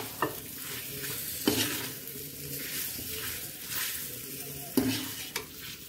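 Cut green chilies sizzling in hot oil and ground spices in a kadhai while being stirred, with a few scrapes and knocks of a metal slotted spoon against the pan. The chilies have just gone into the fried spice mix for pickle.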